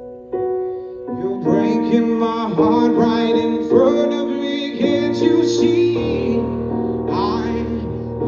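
Live soul/R&B ballad: sustained keyboard chords with a singer's wordless, melismatic vocal runs over them, and a bass line coming in about six seconds in.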